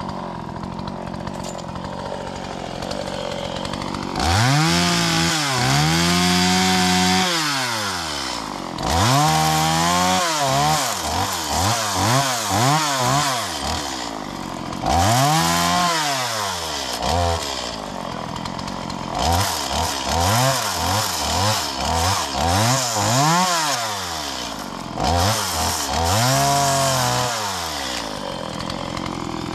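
Gas chainsaw idling, then revved to full throttle again and again as it cuts through brush and branches, the pitch rising and falling back to idle each time. There are a few long revs, a quick string of short revs after the middle, and one more long rev near the end.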